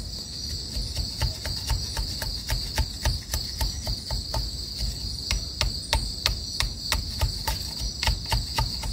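Broad knife blade chopping and shaving a thin wooden stick against a wooden block: a quick, irregular run of light knocks, about three or four a second. A steady high insect chorus runs underneath.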